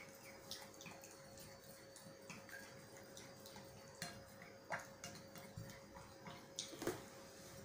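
Utensil stirring a creamy cake mixture in a glass bowl by hand: faint, irregular clicks of the utensil against the glass, with a couple of sharper taps in the second half.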